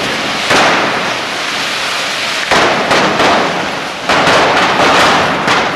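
Cordà firework rockets hissing loudly and continuously as they spray sparks, with several sudden sharp cracks about half a second in and then repeatedly through the second half.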